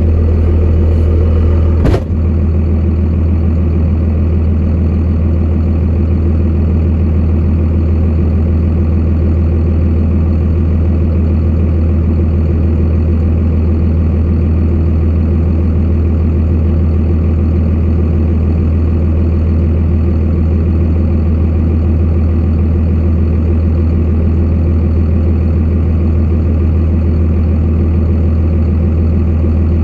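Truck engine running steadily with a low drone, a single knock about two seconds in.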